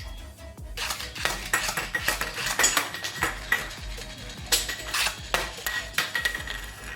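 Irregular clatter of small hard objects being handled, many light knocks and clicks close together, starting about a second in.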